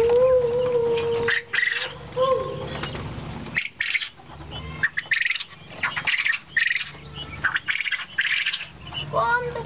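Caged quail calling: a held, lower call in the first second or so, then a run of short, high calls about every half second.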